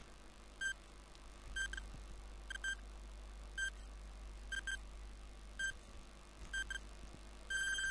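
Countdown timer sound effect: short electronic beeps about once a second, some of them doubled, ending in a longer beep near the end as the countdown runs out.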